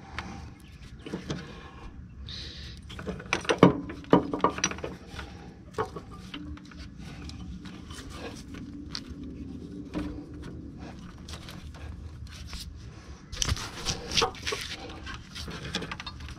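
Hand tools clinking and clicking on the leveling valve's mounting bolts as they are fastened in a tight space, with louder bursts of clicks about three to four seconds in and again near the end.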